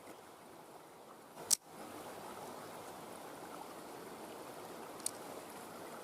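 Creek water running steadily over the rocks. A sharp click about a second and a half in, with a smaller tick near the end; the water sounds a little louder after the first click.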